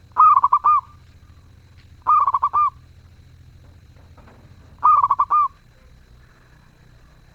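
Zebra dove (perkutut) cooing: three short phrases, each a quick run of four or five rolling notes, the phrases about two to three seconds apart.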